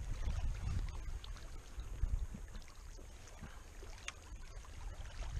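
Wind buffeting a camera microphone, a low rumble that rises and falls, with a faint sharp click about four seconds in.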